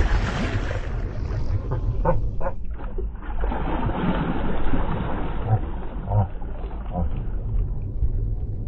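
Water splashing as a large fish lunges at the surface for bait held over the side of a boat, with a few sharp splashes standing out, over a steady low wind rumble on the microphone.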